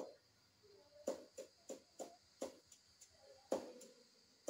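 Long knife chopping fibrous plant material on a wooden board: sharp, separate strokes about three a second, with a short pause a little after the middle. A faint steady high hiss runs underneath.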